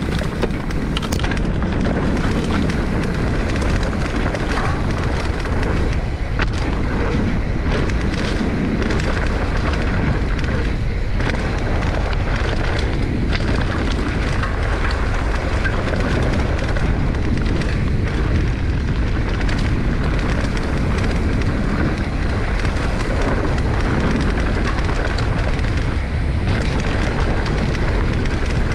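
Wind buffeting the microphone over the steady noise of a mountain bike's tyres rolling fast down a dirt trail, with occasional knocks from the bike over bumps.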